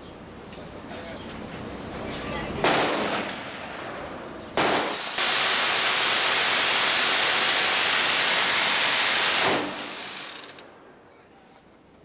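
Six-barrel electric minigun firing: two short bursts of gunfire, then one long burst of about four seconds in which the shots come so fast they run together into one continuous sound. The burst tails off and the sound dies away near the end.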